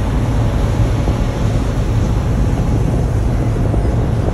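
Steady low rumble of wind buffeting the microphone, with surf washing on the shore underneath.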